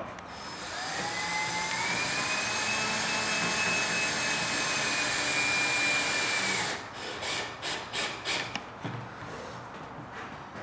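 Cordless drill with a Phillips bit driving a stainless steel screw through a diamond plate kick panel: the motor spins up, holds a steady whine for about six seconds, then stops, followed by a quick run of short bursts.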